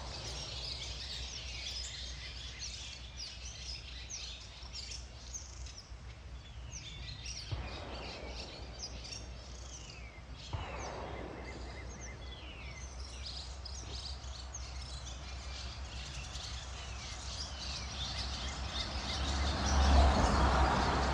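Several birds chirping and calling, many short high notes that slide downward, repeated throughout. Two brief knocks, each followed by a short rush of noise, come about a third and about halfway in, and a louder rush of noise builds near the end.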